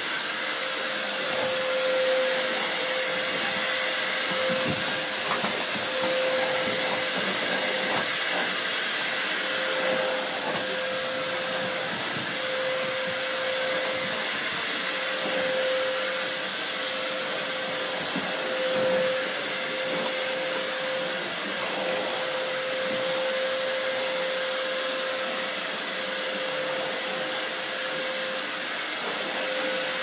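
Vacuum cleaner running steadily, a constant rushing drone with a steady whine on top, as its floor nozzle is worked over carpet.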